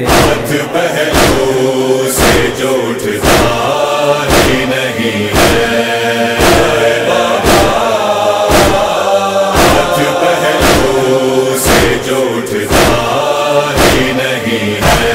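A chorus of voices chanting a wordless nauha refrain over a steady, even beat of about one stroke a second.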